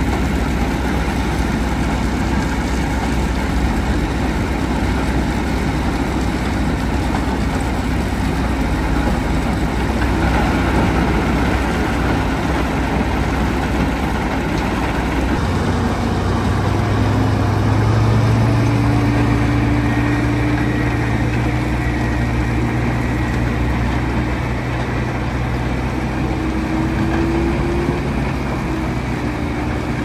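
Mobile rock crushers working: diesel engines running with the steady, dense rumble of stone going through the crushers. About halfway through, a second, deeper engine note comes in on top and holds.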